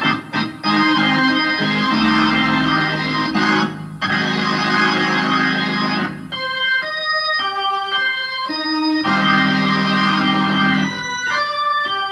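Organ played solo: full held chords over a bass line, then, about six seconds in, the bass drops out for a run of short detached chords before the full chords return, with more short chords near the end.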